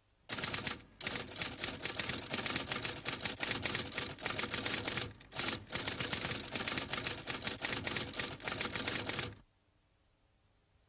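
Animated fight sound effect: a rapid, unbroken barrage of sharp hits, with a few short breaks. It cuts off suddenly near the end.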